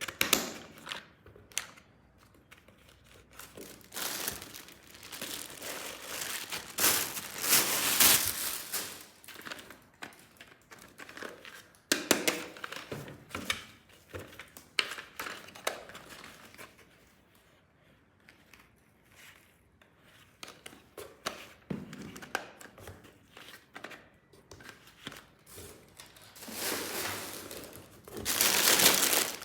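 Toy packaging being crinkled and torn open by hand in irregular bursts, with a few sharp clicks and knocks from handled parts.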